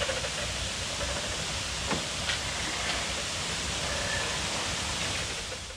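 Fermented pork belly sizzling on a charcoal grill: a steady hiss of cooking fat, with a couple of faint crackles about two seconds in.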